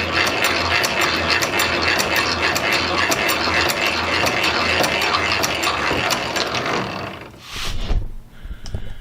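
Hand-cranked drill turning, its gears and ratchet clicking steadily as the bit cuts through the forge's tuyere plate. The cranking stops about seven seconds in, followed by a couple of knocks.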